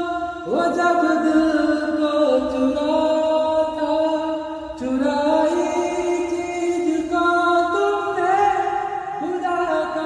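A man singing a slow, sad song, holding long notes and sliding up in pitch into new notes near the start, around the middle and near the end.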